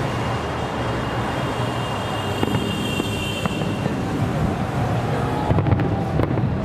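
Aerial fireworks display: a continuous low rumble of shell bursts mixed with crackling, the sharpest crackles coming about five and a half seconds in.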